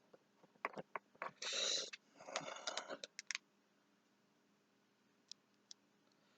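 Plastic action figures being handled: a run of small clicks and taps, with two short rustling scrapes in the first half, then two faint ticks near the end.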